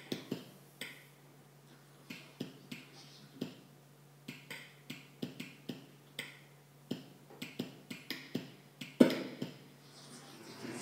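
Sonification of German tweet data played over room loudspeakers: short clicks and brief sound snippets at irregular intervals, one stronger about nine seconds in, over a steady low hum.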